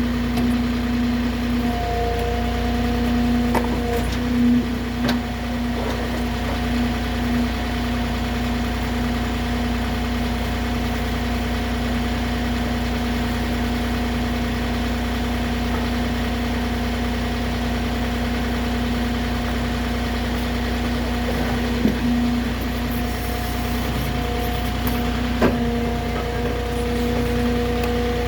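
Moffett truck-mounted forklift's engine running steadily under load, with a higher whine that comes in near the start and again near the end, and a few short knocks and clicks.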